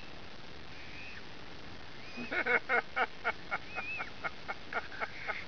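A gull calling: a drawn-out call, then a run of about a dozen short laughing notes, about four a second, loudest at first and fading toward the end. Steady surf washes underneath.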